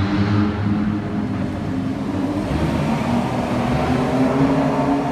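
Car engine running at low speed, its pitch climbing gently in the second half as the revs rise.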